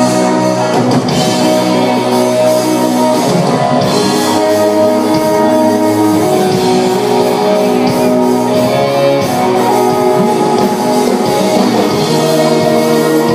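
Loud music with guitar, playing steadily.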